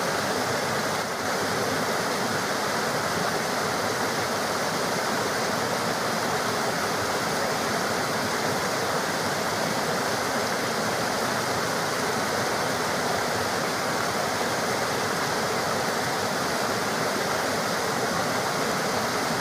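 River water running steadily, an even rushing sound with no pauses.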